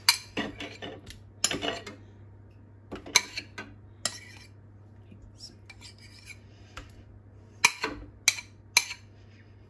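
Metal spoon scraping and clinking against a ceramic bowl and a stainless steel stand-mixer bowl as soft cheese is spooned out. There are scattered sharp clinks near the start and at three to four seconds, and a quick run of five taps near the end.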